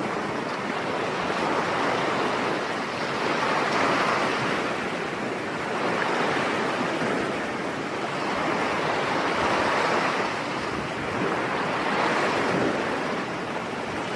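Ocean surf breaking on a shore: a continuous wash of waves that swells and eases about every two seconds.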